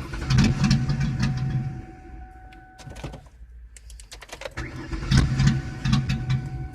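Car engine being cranked by its starter in two bursts of about two seconds each, with a pause between, and not catching. A steady high tone sounds alongside.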